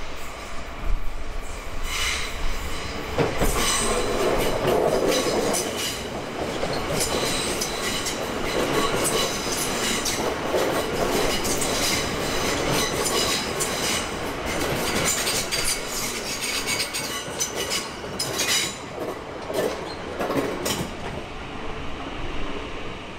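A Melbourne High Capacity Metro Train, an electric multiple unit, running close past, its wheels clicking over the track. A high-pitched wheel squeal runs through most of the pass.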